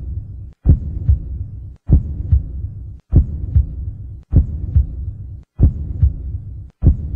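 A heartbeat sound effect: a deep double thump repeating about every 1.2 seconds, with a low hum trailing each beat before a brief gap.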